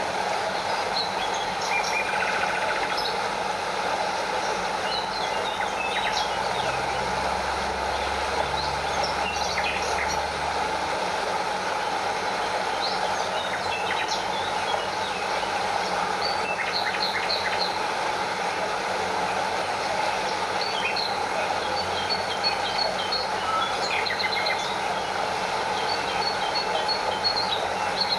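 Steady rush of a stream and small waterfall, with birds chirping over the water noise.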